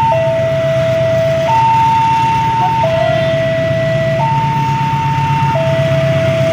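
Railway level-crossing warning alarm sounding, a slow electronic two-tone chime alternating between a lower and a higher note about every one and a half seconds, over a steady low engine rumble.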